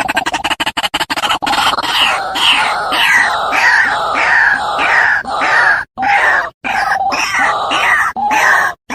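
White-breasted waterhen ('ruak-ruak') calls played as a bird-trapping lure recording. A fast run of clicking pulses gives way about a second and a half in to harsh croaking notes repeated two to three times a second, with a few brief dropouts.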